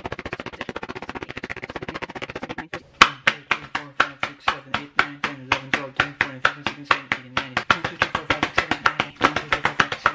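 Hands slapping a paper drawing held flat against the chest: a fast run of light slaps, a brief pause, then one sharp loud slap about three seconds in that starts a steady series of louder slaps at about five a second.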